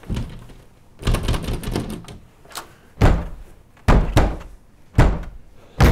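A fist pounding on a closed door: five heavy thumps, irregularly spaced about a second apart.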